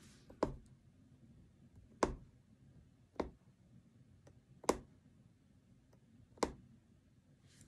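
Punch needle punching in and out of tightly stretched fabric: five sharp pops, roughly one every second and a half.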